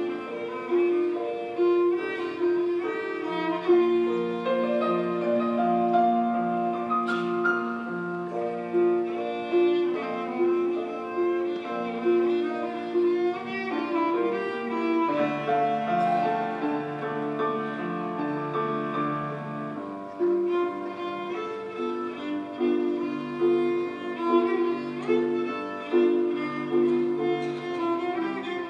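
Solo cello played with the bow: a melody of held notes, each swelling with the bow stroke.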